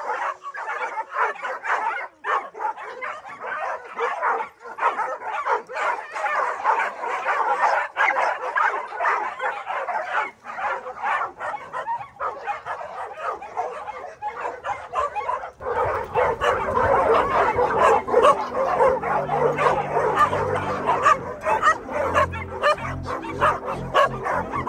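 A large pack of dogs barking, many at once and without let-up. About two-thirds of the way in, background music with a stepping bass line comes in under the barking.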